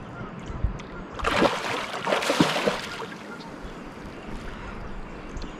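Water splashing about a second in, for a second and a half, as a hooked blue catfish thrashes at the surface while it is landed beside the boat.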